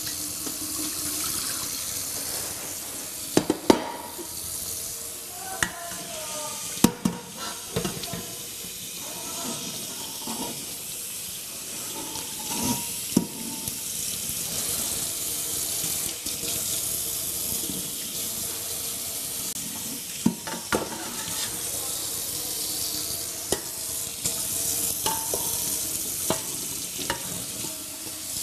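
Kitchen tap running into a sink while dishes are washed, with sharp clinks and knocks of pots and dishes here and there.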